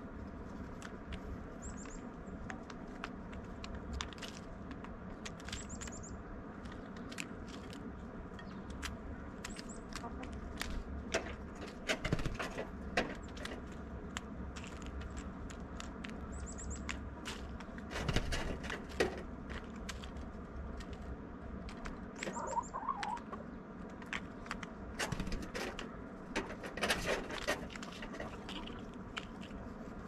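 Blue jay foraging at a stone bowl feeder, its beak and feet making scattered clicks and taps on sunflower seeds and peanuts, with a few louder clusters of tapping. Faint, short, high chirps from another bird come every few seconds.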